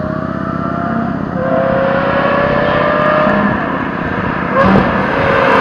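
Modified Aston Martin V12 Vantage S approaching under hard acceleration, its V12 engine revving up through the gears. The pitch climbs, drops at an upshift about a second and a half in, and climbs again, getting louder toward the end as the car nears.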